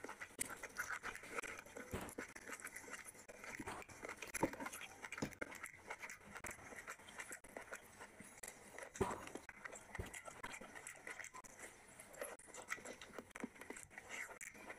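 Close-up eating sounds: wet chewing and lip-smacking on mutton curry and rice, with the cooked meat being torn apart by hand and scattered sharp clicks.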